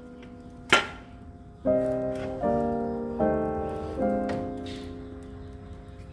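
Soft piano music, a new chord struck about every three quarters of a second and left to fade, with one sharp click under a second in.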